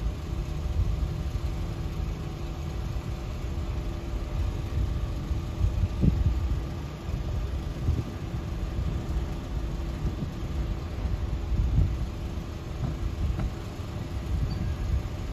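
Wind buffeting the microphone in uneven low rumbling gusts, over a faint steady engine hum.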